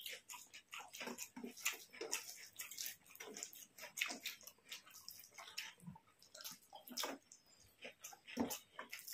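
Faint, irregular wet clicks and smacks of people eating rice and curry: chewing and mouth sounds.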